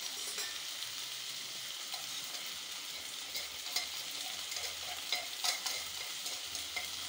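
Oil sizzling steadily as chopped tomatoes and shallots fry in a steel kadai, with a few faint scattered clicks.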